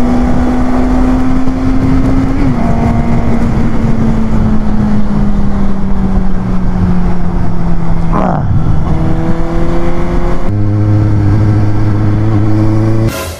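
Suzuki GSX-S750's inline-four engine with an SC-Project aftermarket silencer, heard from the moving bike: a steady engine note that slowly falls in pitch, then changes abruptly about ten seconds in. It cuts off near the end.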